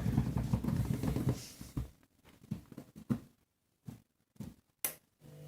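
Candy washing machine in its main wash, the drum turning the wet load with a low churning and sloshing. About two seconds in the drum stops, leaving near quiet broken by a few faint clicks and knocks.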